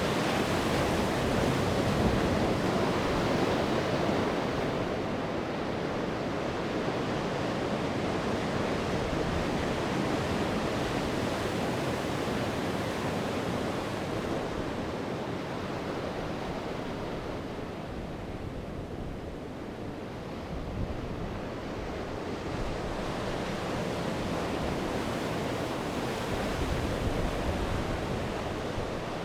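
Sea surf breaking and washing on the shore as a steady rushing wash. It swells and ebbs, easing off a little past halfway, then building again toward the end.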